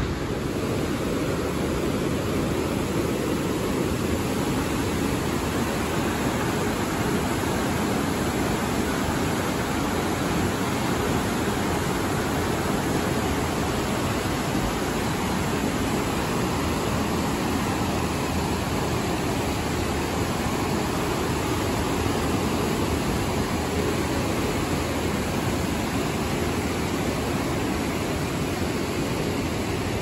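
Fast white water of the Snoqualmie River rushing over rapids in a steady, even hiss that never changes.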